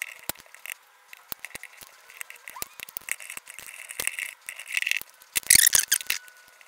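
Small flathead screwdriver prying at a plastic power-bank housing: scattered clicks and scrapes of metal on plastic, with a louder run of cracking about five and a half seconds in as the retaining tabs are pried and broken off.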